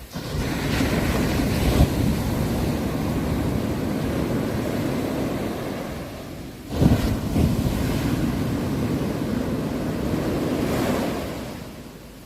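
Ocean waves breaking on a shore, in two surges of surf. One washes in right at the start and the other about seven seconds in; each swells and then slowly fades away.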